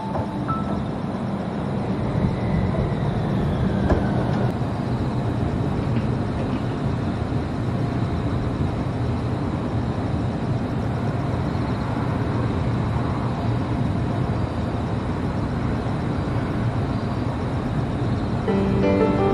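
Utsunomiya Light Rail HU300 tram running along the track, a steady rumble with a faint falling motor whine about two seconds in.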